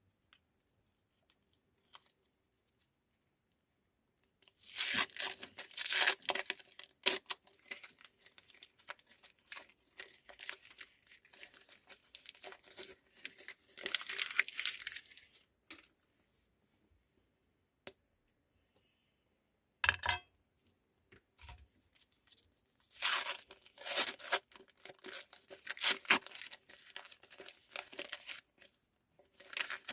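Meat grinder crunching foil-wrapped Gold chocolate biscuits, a dense crackling and crinkling. It comes in two long spells, starting about five seconds in and again after a pause of several seconds with a single knock.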